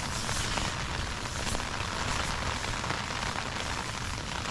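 Rain on a tent's fabric fly, heard from inside the tent as a steady hiss with scattered small ticks, over low wind noise.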